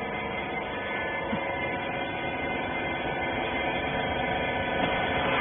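Rag baler's hydraulic power unit (electric motor and pump) running with a steady hum, growing slightly louder toward the end.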